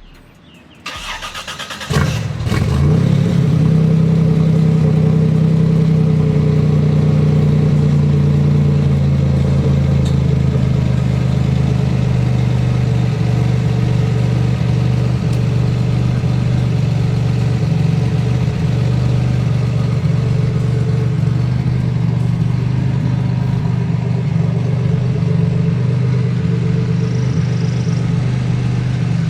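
Buick Grand National's engine being cranked by the starter, catching about two seconds in, then settling into a steady idle.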